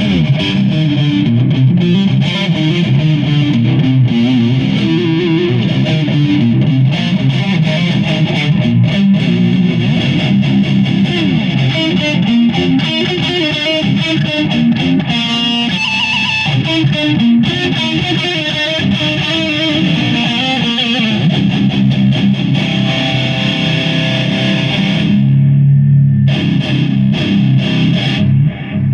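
Distorted electric guitar through a Marshall JCM 2000 amp, played as a run of higher lead notes with delay added. About 25 seconds in, it settles into a held low chord.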